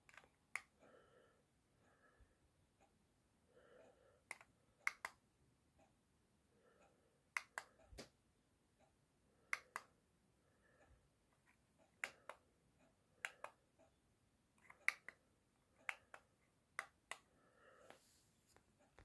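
Buttons on a handheld plastic remote for an LED ceiling light clicking as they are pressed and released, mostly in quick pairs, every second or two.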